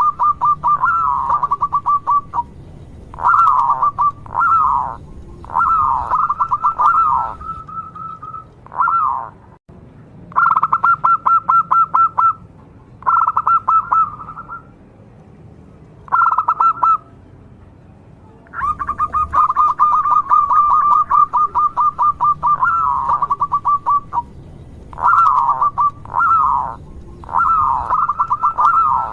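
Zebra dove (perkutut) singing: bursts of rapid staccato cooing notes on one pitch, broken up by short down-sliding notes and repeated after pauses of a second or two.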